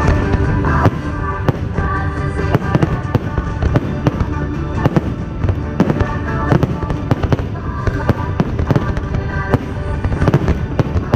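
Fireworks going off in rapid succession, several sharp bangs and cracks a second, over loud music playing along with the display.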